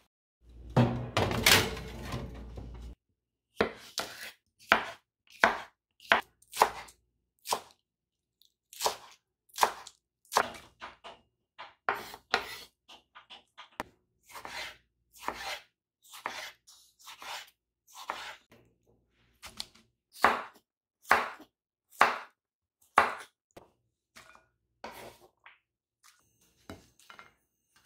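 A kitchen knife cutting salad vegetables such as tomato on a wooden cutting board, in separate sharp chops about one a second. A loud noise lasting about two seconds comes first.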